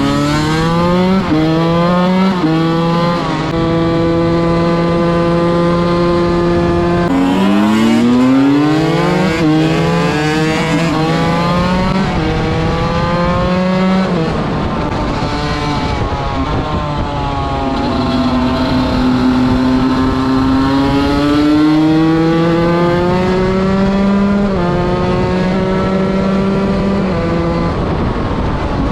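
125 cc two-stroke enduro motorcycle engine being ridden. It revs up through the gears with quick upshifts, each one a sudden drop in pitch, in the first few seconds and again after about seven seconds. In between and later it holds a steady pitch, rising and falling slowly with the throttle.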